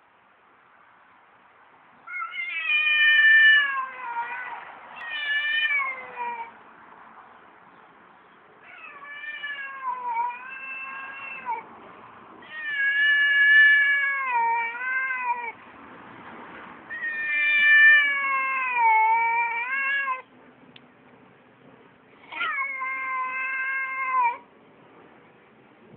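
A domestic cat yowling: a series of long, drawn-out calls that waver in pitch, each lasting a couple of seconds, with short pauses between. It is a territorial caterwaul from a cat defending its porch.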